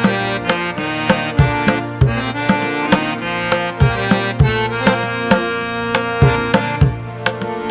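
Background music with tabla-like drum strikes, about two to three a second, under sustained instrumental notes.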